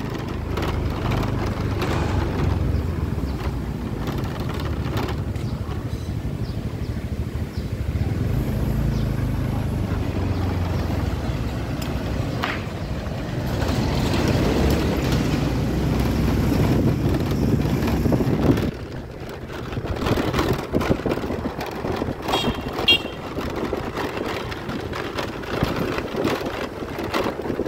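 Street traffic: truck engines running and motorbikes passing close by, a low rumble that drops away sharply about two-thirds of the way through, leaving lighter street noise with scattered clicks.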